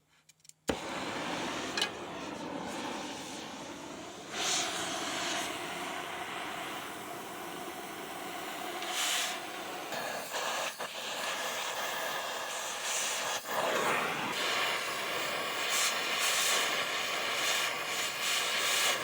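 Oxy-fuel cutting torch hissing steadily as it burns out old riveted frame rivets, with brief louder flares every few seconds. It starts suddenly under a second in and shuts off at the very end.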